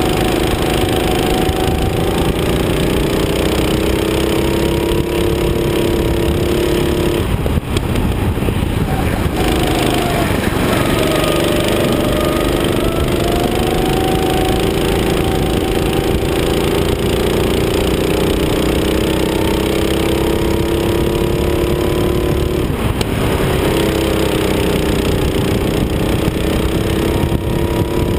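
Rental go-kart engine running hard under throttle, heard on board over a steady rushing noise. About a quarter of the way in the engine note drops away abruptly for a few seconds as the driver lifts off, then comes back and climbs in pitch as it accelerates again, with another brief lift near the end.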